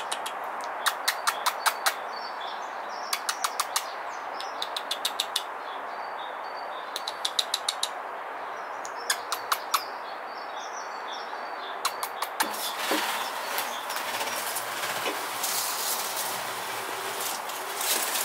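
Squirrel chattering in short bursts of rapid clicks, five to eight at a time, repeating every couple of seconds: an alarm call. From about two-thirds of the way in the bursts give way to an irregular rustling and knocking.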